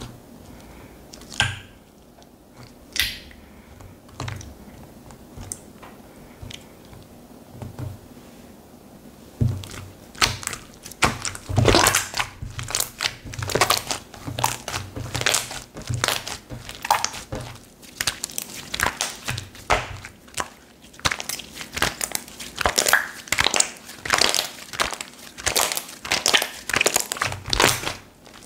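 Slime being squished and pressed by hand, making dense, irregular crackling and popping clicks from about ten seconds in; before that only a few scattered clicks.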